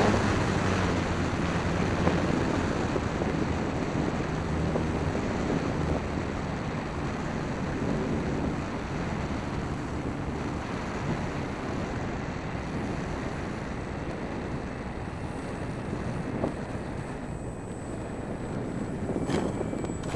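Airflow rushing over the onboard camera microphone of a Dynam Waco electric RC biplane in flight, with a low motor and propeller hum. Both fade over the second half as the plane comes in to land.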